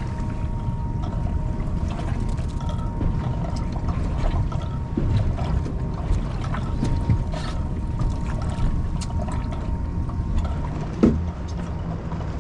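Steady wind and water noise aboard a small drifting boat, with scattered small clicks and taps and one louder knock near the end.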